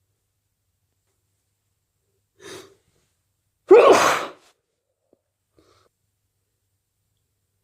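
A person's quick, faint breath in, then about a second later one loud, sudden sneeze.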